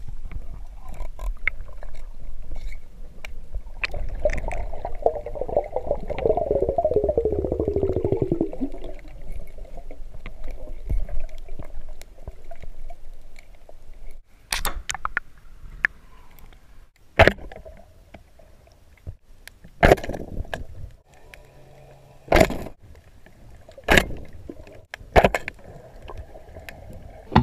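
Underwater sound picked up through a GoPro housing while freediving: a low water rush, with a rattling drone that falls in pitch from about four to nine seconds in. In the second half come six sharp clicks or knocks, a second or two apart.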